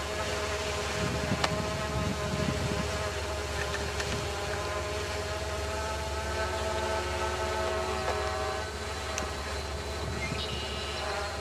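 Amtrak passenger train backing slowly along the track: a steady low rumble with a whining tone running through it that fades near the end.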